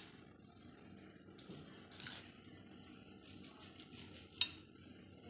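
Kitchen knife cutting through a bread sandwich on a plastic cutting board: quiet, soft scraping with a few faint clicks, and one louder click of the blade on the board about four seconds in.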